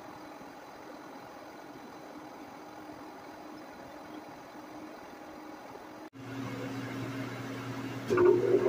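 Steady low machine hum in a workshop, faint at first. A sudden cut about six seconds in brings a louder steady hum, and a louder sound with several tones comes in near the end.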